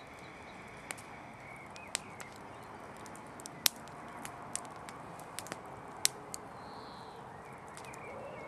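Wood campfire crackling, with irregular sharp pops a second or so apart, and faint bird calls in the background.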